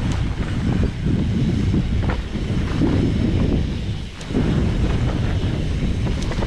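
Wind buffeting the microphone of a rider on a moving mountain bike, a loud low rumble with a few sharp clicks; it eases briefly about four seconds in.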